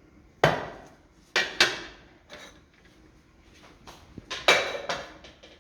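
Cracked olives being tipped into a kitchen container, with a few sharp knocks and clatters of the dish: two near the start, a pair about a second and a half in, and two more near the end.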